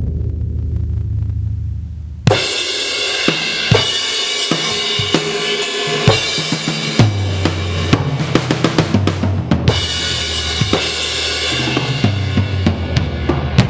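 Sampled DW drum kit with a big room preset, played live through a 2Box electronic drum module: bass drum, snare and hi-hat under cymbals. A low drum ring opens, then a crash cymbal comes in about two seconds in and rings over the busy playing that follows.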